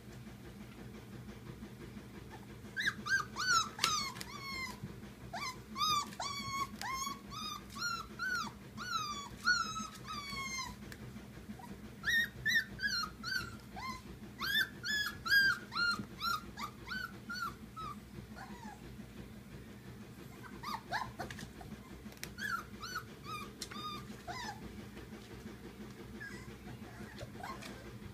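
Polish Lowland Sheepdog puppies about four weeks old yelping and whining: runs of short, high calls that fall in pitch. The calls come in three bouts with pauses between them, and the last bout is weaker. A steady low hum runs underneath.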